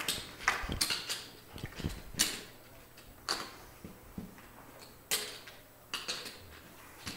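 Poker chips clicking as players handle and shuffle them at the table: irregular sharp clicks, several seconds apart at times and closer together at others.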